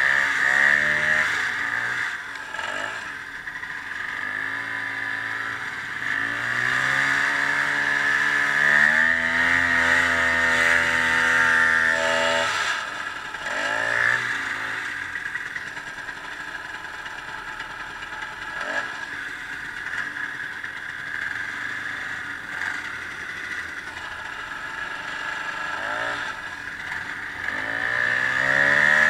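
Ski-Doo snowmobile engine running under way, repeatedly speeding up with a rising pitch and easing back off, over a steady high whine.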